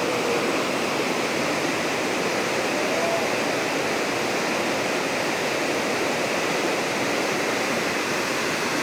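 River water rushing steadily below a bridge, the river running high with a strong flow.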